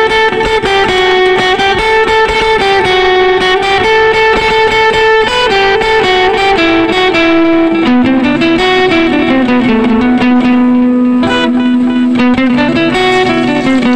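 Background music: a guitar tune of held melody notes over quick plucked strokes, running without a break.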